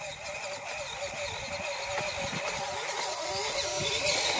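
Electric motor and gear train of a 1:12 scale RC off-road truck whining as it drives, the pitch wavering up and down with the throttle and growing louder near the end.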